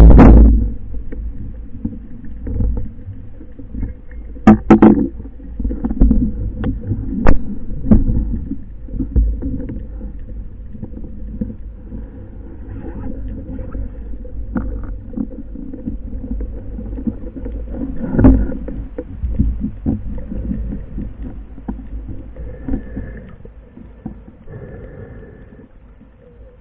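Underwater sound through a speargun-mounted camera's housing: a low rumble of water noise with a faint steady hum, broken by knocks and clicks of the gear being handled. The loudest knock comes right at the start, with others about 5 and 18 seconds in, and the noise fades near the end.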